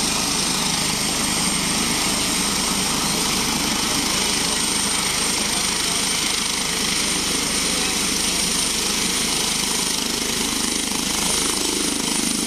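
Airbus helicopter running on the ground with its rotor turning, ready for takeoff: a steady turbine whine over continuous rotor noise.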